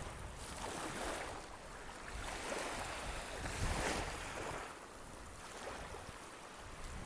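Sea surf washing onto a beach: a steady hiss that swells and eases in surges every couple of seconds.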